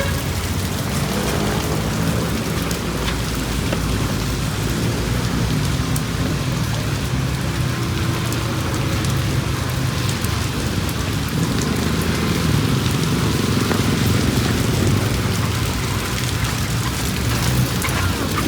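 Steady rain falling on a city street, with the low, shifting engine sound of street traffic underneath.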